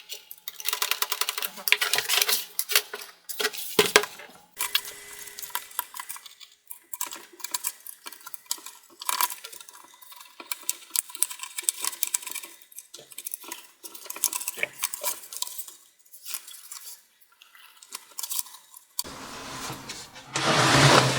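Plastic snap clips of a laptop palm rest clicking and popping as the panel is pried loose, with many quick clicks and rattles, then a louder scraping rush near the end.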